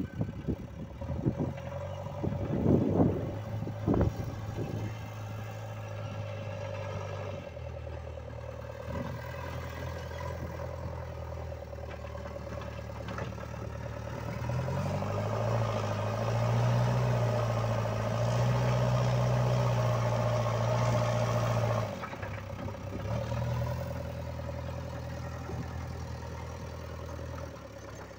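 JCB backhoe loader's diesel engine running as the machine works soil with its front loader bucket. A few loud knocks come in the first few seconds. The engine revs higher for several seconds past the middle, then drops back to a lower, steady note.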